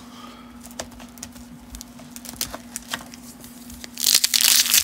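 Faint clicks and rustles of cards and packs being handled, then about four seconds in a loud crinkling tear as a 1991 Topps Traded wax-paper pack wrapper is ripped open.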